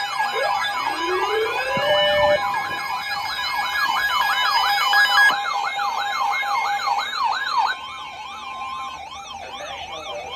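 Several electronic sirens sounding together: one winds up in pitch and holds, another sweeps rapidly up and down about twice a second, over steady alarm tones. The whole mix drops in level near the end.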